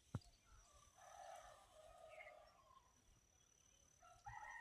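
Faint outdoor ambience with a steady thin high whine. There is a faint distant call about a second in, and a rooster starts to crow near the end.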